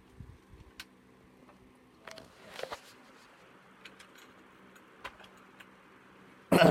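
Small clicks and taps of a die-cast toy car and its plastic packaging being handled and set down, over a faint steady hum, with a louder scrape about two and a half seconds in and a brief loud sound near the end.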